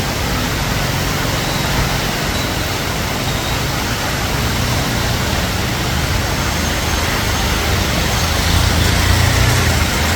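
Heavy rain during a storm: a loud, steady, dense hiss with a low rumble underneath.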